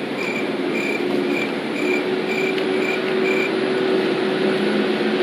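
Cricket chirping sound effect: short, even chirps about twice a second over a steady hiss, stopping about three and a half seconds in.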